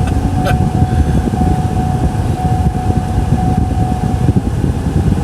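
Steady low rumble of a running vehicle, with a thin steady whine that stops about four seconds in and a short click about half a second in.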